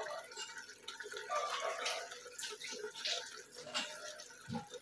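Chicken pieces sizzling and spattering in hot oil and masala in an aluminium pressure cooker on high heat, as the chicken is browned (bhuna). The crackle is irregular and comes in short spits.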